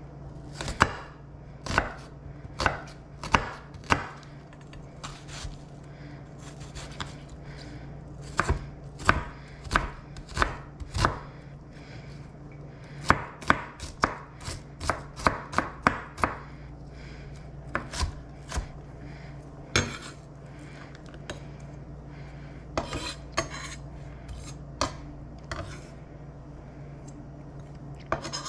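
Chef's knife dicing an onion on a bamboo cutting board: sharp knocks of the blade on the board at irregular intervals, some in quick runs of several cuts a second, with short pauses between.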